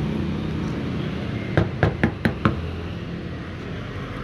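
Five quick, sharp knocks in under a second as a small plastic bottle is tapped to shake a blob of cream dish soap down from its neck to the bottom.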